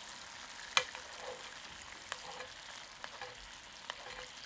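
Teriyaki sauce of mirin, sake and soy sauce simmering and reducing in a frying pan with yellowtail pieces in it: a steady sizzle with scattered sharp pops, the loudest about a second in.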